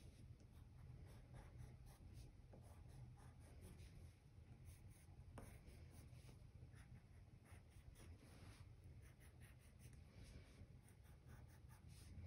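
Faint scratching of a wax crayon on paper in quick, short strokes as small stars are drawn.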